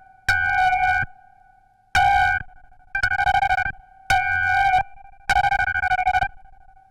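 Analog synthesizer sounding a recreation of the Shōwa-era King Ghidorah cry. It plays five short, bright, organ-like tones on one steady pitch, separated by brief gaps, each fluttering fast with a low rumble underneath.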